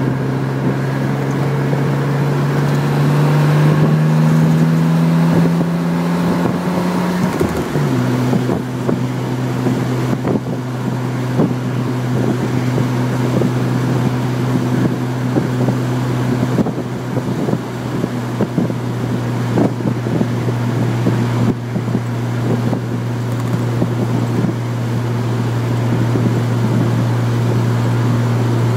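Chevrolet Corvair's air-cooled flat-six engine pulling under way, its pitch climbing for about seven seconds, then dropping at a gear change and holding steady at cruise. Road and wind noise run underneath.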